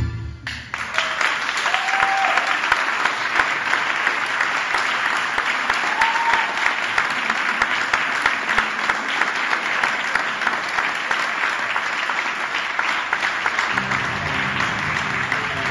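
A tango piece ends right at the start, and the audience breaks into steady applause that lasts about thirteen seconds. Tango music starts again under the last of the clapping near the end.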